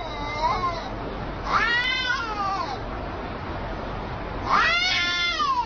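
Cats in a face-off yowling: a short yowl at the start, then two long drawn-out yowls, one about a second and a half in and one near the end, each rising and then falling in pitch.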